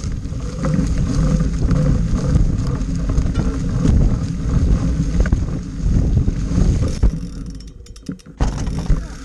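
29er mountain bike (Specialized Stumpjumper) riding fast down a dirt singletrack covered in dry leaves, heard close to the front wheel: tyres crunching through the leaves and the bike rattling over bumps. Near the end come two sharp knocks as the wheels go onto a wooden boardwalk.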